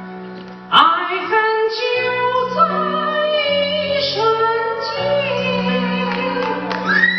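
A man singing into a handheld microphone over instrumental accompaniment; his voice comes in loudly about a second in, sliding up into its first note, and carries on over the music.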